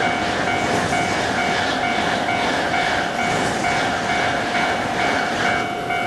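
A Shinkansen bullet train rushing past a Japanese level crossing, its noise swelling in a regular beat about twice a second, while the crossing's warning bell rings its repeated 'kan kan' tones. The train noise dies away near the end, leaving the bell ringing.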